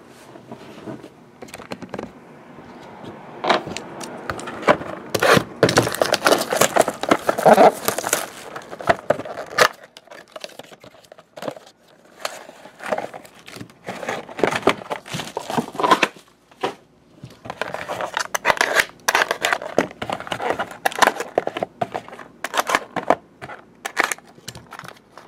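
Plastic wrap crinkling and tearing as a sealed trading-card box is unwrapped, followed by cardboard card packs being handled and scraped, and a box cutter slitting a pack's wrapper near the end. Uneven bursts of crackling and rustling, loudest and densest a few seconds in.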